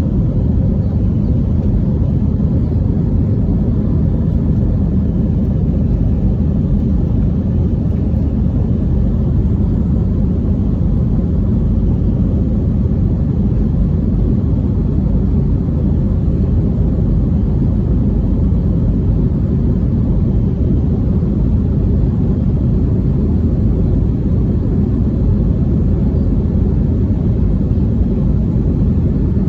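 Airbus A320 jet engines, a steady low rumble that holds level with no rise or fall in pitch.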